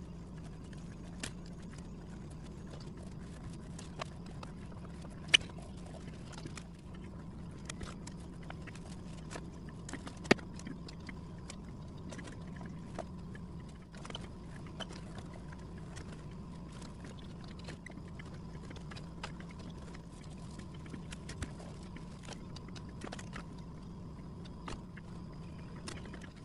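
Pencil scratching and tapping on a sketch pad, as irregular small clicks and scrapes over a steady low hum, with two sharper taps about 5 and 10 seconds in.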